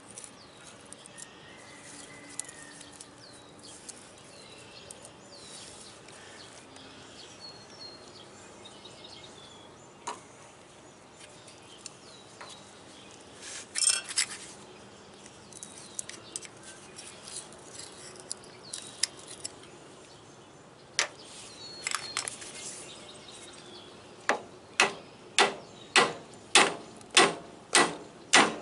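Light metal clicks and scrapes of pliers working a retaining clip off a steel pivot pin on an excavator's hydraulic cylinder mount, with a sharp metallic clatter about halfway through as the clip comes free. In the last few seconds a hammer strikes the pin end in a steady run of sharp blows, about two a second, the loudest sound. Birds chirp faintly in the background.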